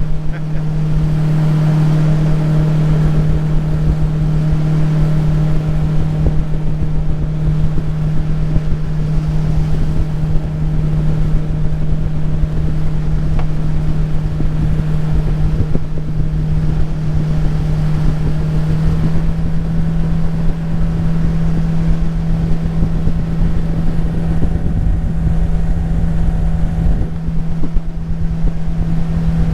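Jet-drive outboard motor running at a steady speed as the boat travels, a constant hum with wind buffeting the microphone.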